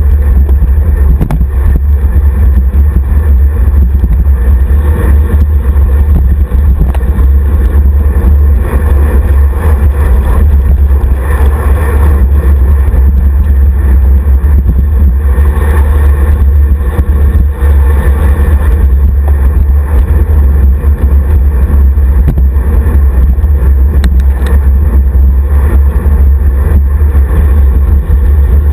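Wind buffeting the microphone of a camera mounted on a road bike's handlebars at riding speed: a loud, steady low rumble with a rushing haze above it.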